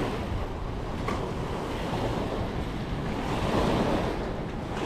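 Small waves washing onto the shore, with wind buffeting the microphone; the wash swells about three and a half seconds in.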